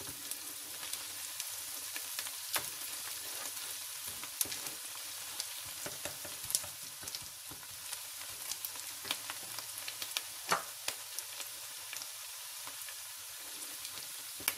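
Chopped onion frying in hot olive oil in a metal pot, being lightly browned: a steady sizzle with scattered sharp pops and clicks as it is stirred with a spatula.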